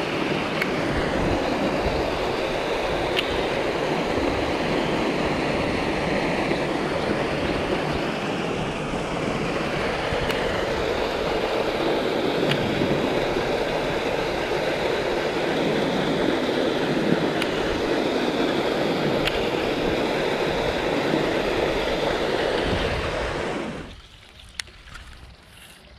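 Water rushing steadily over a small concrete weir into an irrigation canal. About a second before the end it cuts off suddenly to a much quieter background with a few faint clicks.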